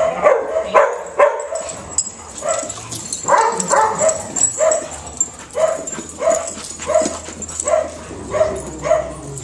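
A dog giving short, high play barks and yips, about two a second in a steady run, while wrestling with another dog.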